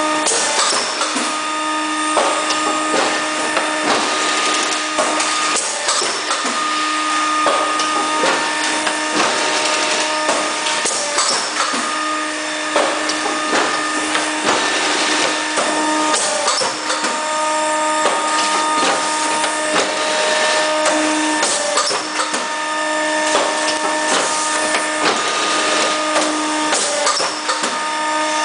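Cake-box label applicator machine running: a continuous mechanical clatter of clicks, over a pitched motor hum that runs for a few seconds at a time and drops out briefly between runs.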